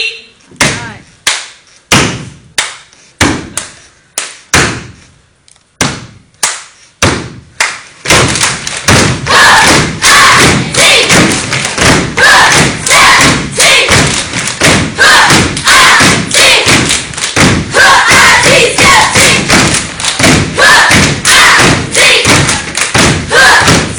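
Step team stomping in unison on a hard floor: single, evenly spaced stomps about every half second, then about eight seconds in a fast, loud run of stomps and strikes with the group's voices mixed in.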